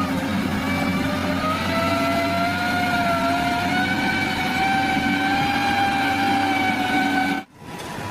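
Heavy construction machine's engine running, with a high whine that slowly rises in pitch over several seconds. The sound cuts off abruptly near the end and comes back steadier.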